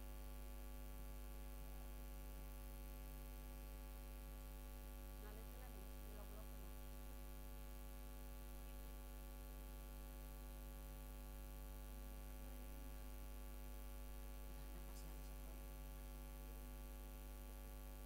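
Steady electrical mains hum with a stack of even overtones, unchanging throughout, with faint voices briefly audible about five to six seconds in.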